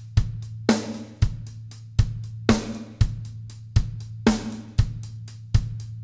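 Drum kit playing a groove whose bass drum and snare loop in 7/16, with the snare about every 1.8 seconds, under a steady stream of hi-hat strokes.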